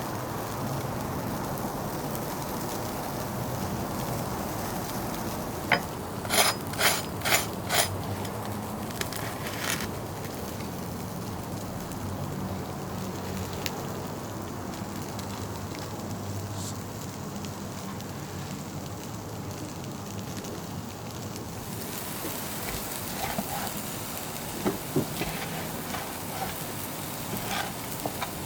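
Steak slices sizzling on a charcoal grill: a steady hiss. About six seconds in come five sharp clicks in quick succession, with a couple more near the end.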